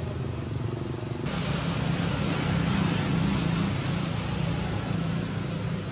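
Steady low engine hum, with a loud hiss joining about a second in.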